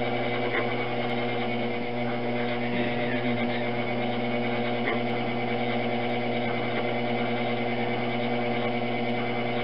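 Electric potter's wheel running steadily at speed, its motor giving a constant even hum while a clay jug is being thrown on it.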